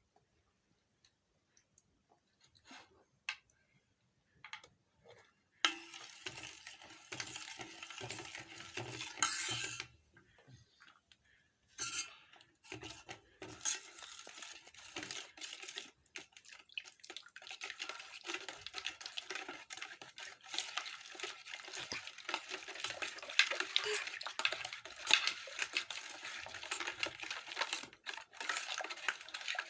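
Kitchen utensils clinking and scraping against a dish, as in stirring or handling food. A few faint ticks come first; the clatter starts in earnest about six seconds in, pauses briefly, then runs on steadily.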